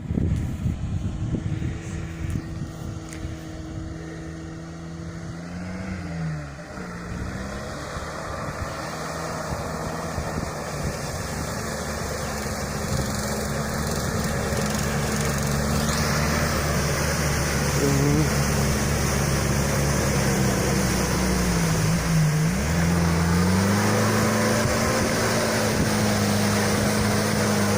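UAZ-469's ZMZ-406 four-cylinder petrol engine running under way. The revs dip and climb back twice, about six seconds in and again about twenty-two seconds in, and the engine note grows gradually louder.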